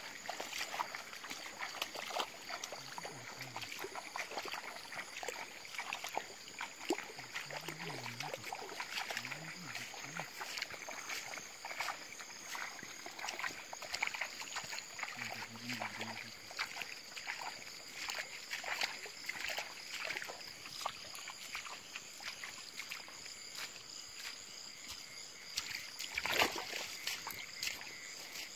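Footsteps and legs brushing through tall grass and undergrowth, with many small crackles and rustles, over a steady high chirring of night insects. A single louder rustle or thump comes near the end.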